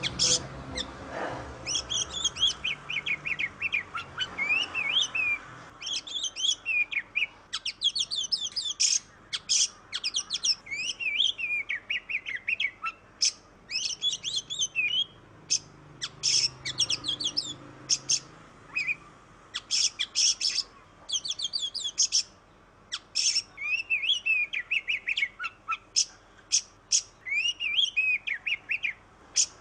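Oriental magpie-robin (kacer) singing a fast, varied song: quick chirps, whistled slurs and short sharp notes in bursts separated by brief pauses.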